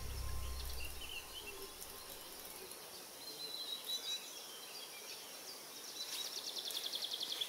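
Faint natural outdoor ambience with scattered bird calls. From about six seconds in, a rapid, high-pitched pulsing trill joins in. The tail of background music fades out in the first second.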